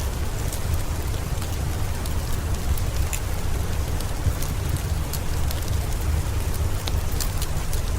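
Steady rain, heavy in the low end, with scattered sharp ticks throughout.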